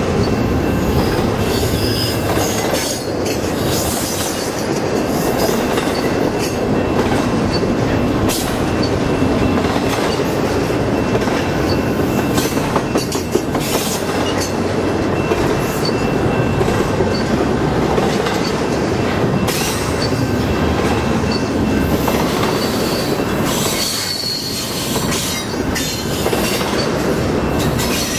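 Double-stack intermodal well cars rolling past close by: a loud, steady rumble of steel wheels on rail with occasional knocks and clanks from the cars, and a thin high wheel squeal running through much of it.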